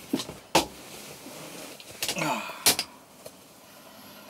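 A handful of short, sharp clicks and crackles from objects being handled. The loudest come about half a second and two and a half seconds in.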